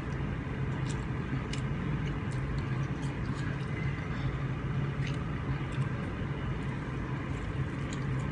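A steady low hum under an even hiss, with scattered small clicks.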